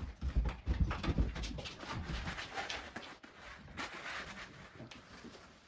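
Handling noise from a plastic animatronic arm and its wiring as a wire is fed up through the arm: knocks and clicks in the first second or two, then rustling and scattered clicks.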